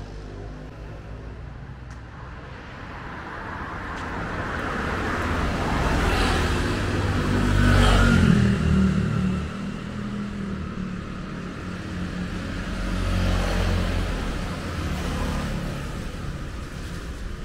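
A motor vehicle passing by on the street, growing louder to a peak about eight seconds in and then fading, followed by a second, fainter pass-by a few seconds later, over steady traffic noise.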